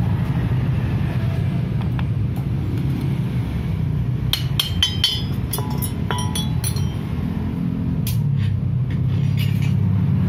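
Small metal parts and tools clinking and clicking against each other several times, clustered in the middle and again near the end, as a disassembled car alternator's regulator and brush parts are handled. Underneath runs a steady low rumble.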